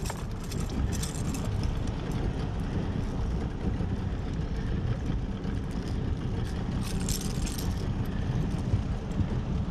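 Light metallic rattling of a lure's hooks and pliers as a hooked cod is unhooked, about a second in and again around seven seconds in, over a steady low rumble.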